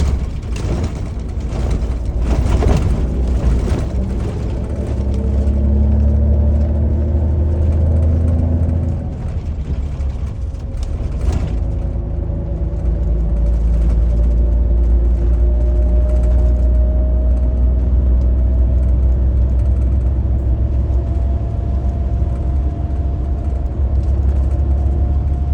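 Bus engine running as the bus drives, a steady low hum. Its note drops about nine seconds in, then rises slowly as it picks up speed, with a few knocks and rattles early on.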